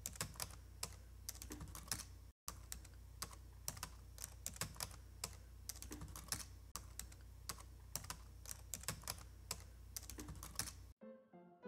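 Computer keyboard typing: irregular quick key clicks over a low steady hum, with a brief cutout about two seconds in. The typing stops near the end as piano music comes in.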